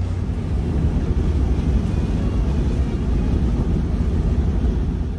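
Suzuki Cappuccino's small turbocharged three-cylinder engine and road noise, steady while driving with the roof off, with wind rumbling on the microphone.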